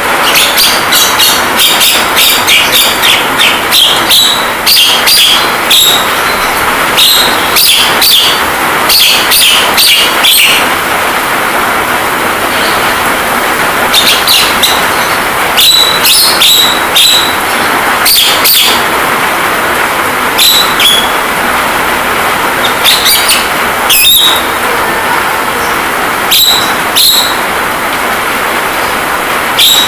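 Javan myna (jalak kebo) calls: many short, sharp chirps and whistles, some in quick runs and some single, over a steady rain hiss from a rain-sound recording.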